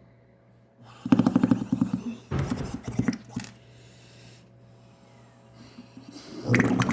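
Cookies and cream slime being squeezed and worked in the hands, letting out squelching, crackling pops of trapped air. These come in three bursts: about a second in, again shortly after, and near the end.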